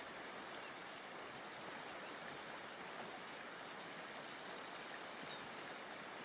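Faint, steady rush of a flowing mountain stream.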